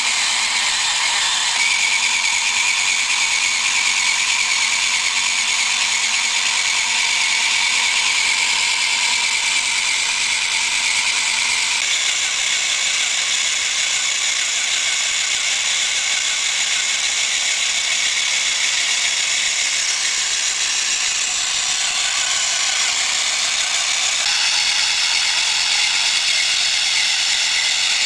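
Small electric hobby motor and its plastic gear reduction running steadily, driving a homemade crawler tractor's chipboard-block tracks; the tone shifts slightly about twelve seconds in and again near the end.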